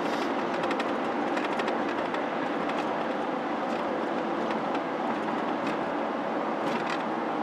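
Steady road and tyre noise heard from inside a moving car's cabin, an even rumbling hiss at constant loudness.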